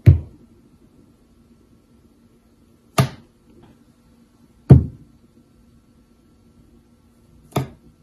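Four short, sharp knocks, spaced one to three seconds apart, the first and third the loudest, each dying away quickly; a faint steady hum runs underneath.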